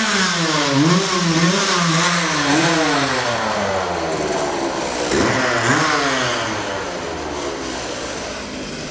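An engine running and being revved up and down, its pitch rising and falling in slow waves, with a short knock about five seconds in.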